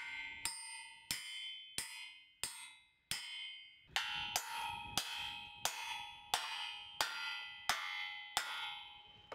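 Steady hammer blows, about thirteen, one every two-thirds of a second, driving a wedge between two steel box sections, with the steel ringing after each strike. The wedge is being driven to spread a joint warped by welding back open.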